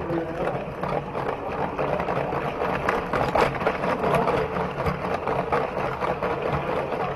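LEGO model train's small electric motor whirring steadily as the train runs, with a constant fine rattle of the wheels and gears, heard from inside the train.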